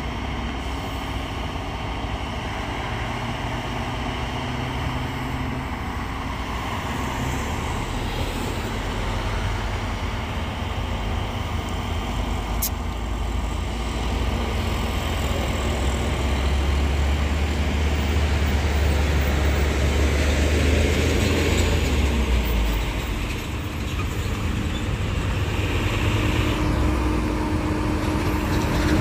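Heavy truck's diesel engine running under load on a steep climb, a steady low drone that swells towards the middle, dips briefly about three-quarters of the way through and builds again.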